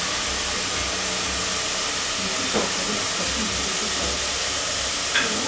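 Steady hiss of a pot cooking on a lit gas stove burner, with two faint knocks, one about halfway through and one near the end.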